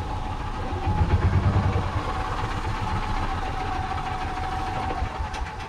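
Tracker OX400 utility vehicle's engine running under throttle, louder about a second in, then settling to a steady run with a thin steady whine above it.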